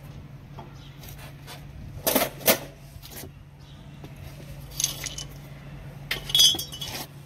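Metal clinks and rattles of a brake caliper and its pads being handled and worked free: two sharp clanks about two seconds in, another about five seconds in, and a short clattering rattle near the end, over a steady low hum.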